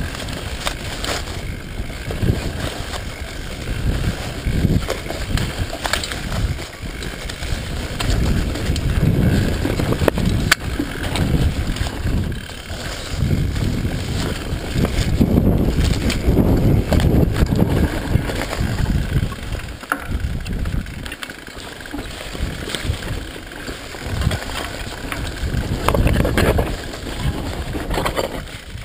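Mountain bike riding down a rough dirt singletrack: tyres rumbling over dirt and stones, with scattered clicks and knocks from the bike rattling over bumps, and wind on the microphone. The rumble swells and dips with the terrain and is loudest in the middle stretch.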